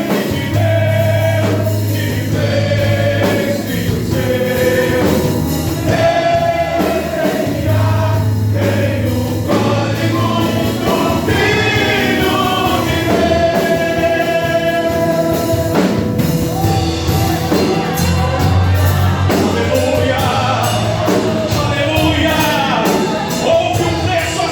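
Gospel song sung by a men's choir with band accompaniment: long held sung notes over a steady bass.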